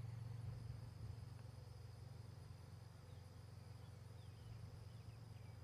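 Honeybees buzzing faintly around an open hive box full of a freshly installed swarm, a steady low hum, with a thin steady high insect drone above it.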